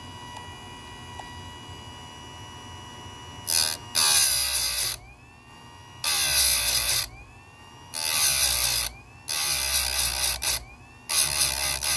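Chicago Electric electric chainsaw chain sharpener grinding chain teeth. The motor runs steadily at first, then the spinning wheel is brought down onto one tooth after another: six grinds, each about a second long, with the motor's whine rising back up between them.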